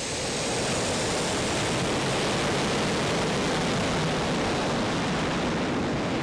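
Su-25 attack jet's twin turbojet engines at high power as it accelerates down the runway: a loud, steady roar of jet noise, with a faint high turbine whine in the first second or two.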